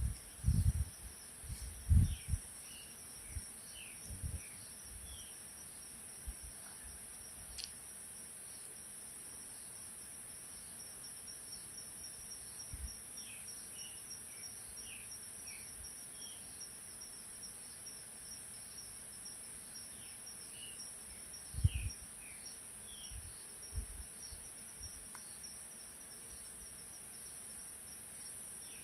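Insects singing outdoors: a steady high-pitched drone with a rapid, even cricket-like pulse over it, and a few short groups of bird chirps. A few low thumps on the microphone, the loudest sounds, come in the first couple of seconds and again about two-thirds through.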